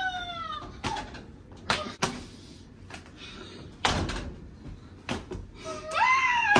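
Sharp slaps of flour tortillas against faces, several scattered through, the loudest about four seconds in. Voices cry out in sliding, falling whoops at the start and again near the end.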